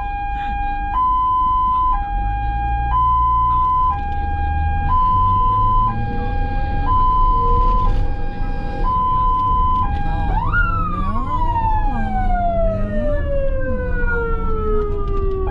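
Ambulance siren in two-tone hi-lo mode, alternating between two pitches about once a second. About ten seconds in it switches to a wail that rises quickly and then glides slowly down. Low engine and road rumble runs underneath.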